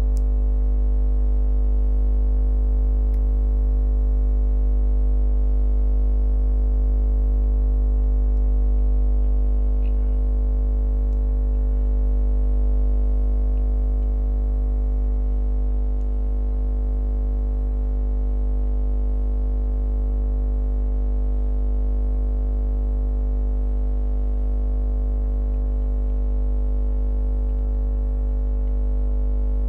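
A steady, unchanging electronic drone: a loud deep hum with several held pitches stacked above it, running without a break or any change in level.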